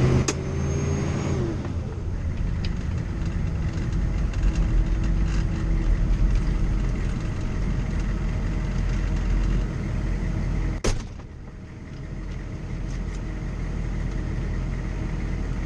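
Armored military Humvee's diesel V8 engine running steadily, with a sharp click about eleven seconds in, after which the engine sound is quieter.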